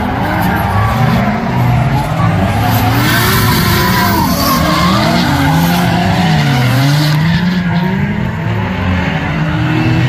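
Two drift cars sliding in tandem: their engines rev up and down over and over as the throttle is worked, over a continuous noise of tyres skidding and squealing.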